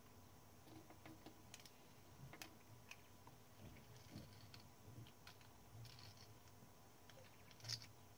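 Faint, irregular small clicks and taps of metal parts being handled on a Klein Adler 2 portable typewriter under repair, with one sharper click near the end.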